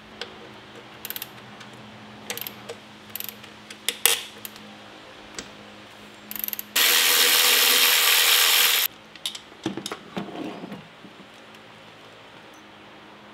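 Cordless electric ratchet running for about two seconds in the middle, spinning out a throttle body mounting bolt. Scattered tool clicks and clinks come before it, and a few knocks and rattles follow as the throttle body is worked loose.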